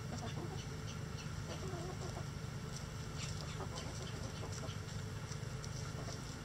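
Backyard chickens clucking softly as they forage, with short high chirps scattered throughout over a steady low hum.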